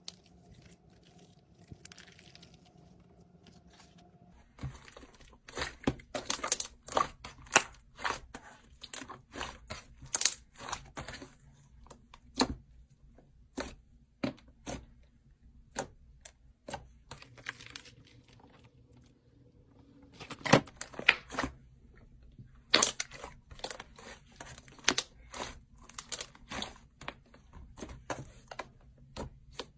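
Slime worked by hand, giving dense crackling and popping clicks in two spells with a quieter gap in between.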